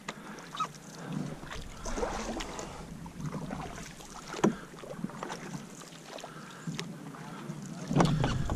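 Canoe paddles dipping and pulling through calm lake water, with splashes, drips and a few short knocks. Wind rumbles on the microphone near the end.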